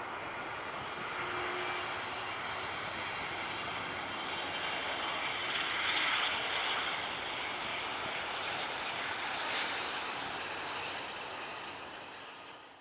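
Jet engines of a Boeing 757-200F freighter rolling out along the runway after landing: a steady engine roar that swells slightly midway and fades out near the end.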